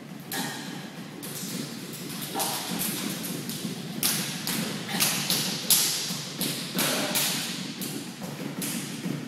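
Dancers' feet and hands striking the studio floor and chairs: a run of irregular thuds and slaps, about two a second, loudest about halfway through.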